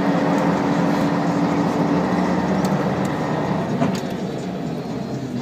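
Scania K113 coach's rear-mounted diesel engine running with a steady drone, heard from inside the passenger cabin, with a few faint clicks and rattles.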